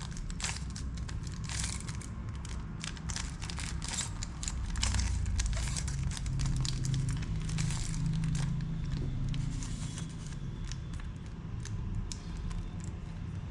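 Plastic Rubik's cube faces being turned by hand: a run of quick clicks and rattles, dense for most of the time and thinning out near the end.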